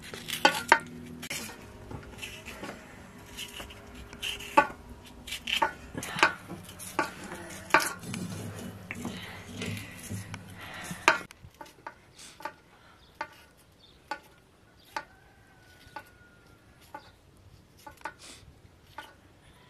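Knife slicing a green bell pepper held in the hand: a string of short crisp cuts, with pieces dropping into a metal bowl. The cuts come thick and loud for about the first eleven seconds, then quieter and more spaced out.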